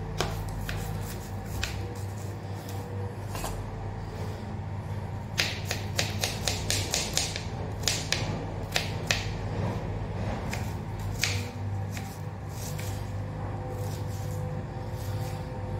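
Kitchen knife chopping an onion on a plastic cutting board: scattered single cuts, then a quick run of chops at about three or four a second from about five to nine seconds in.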